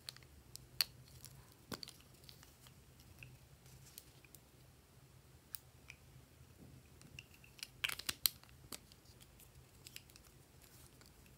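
Scattered sharp clicks and snips from plastic lipstick tubes being handled and small scissors cutting lipstick into slime, with a quick cluster of clicks about eight seconds in.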